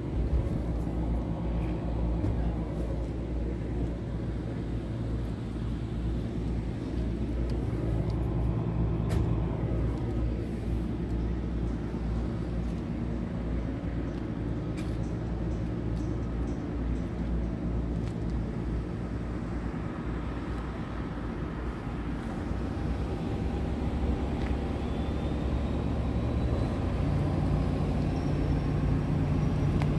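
Diesel engine of a Scania R tractor unit idling steadily, a low even hum with a small change in its tone near the end.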